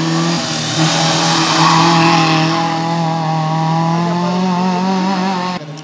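Small hatchback race car's engine held at high revs as it drives through a cone slalom and away, with a brief break in the note about half a second in. The sound cuts off sharply near the end.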